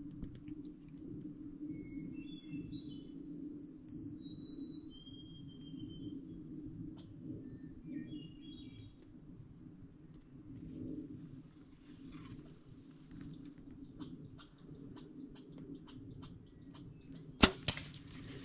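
Songbirds chirping and singing: many short high chirps with a few whistled gliding phrases, over a steady low hum. A single sharp click or knock sounds near the end and is the loudest sound.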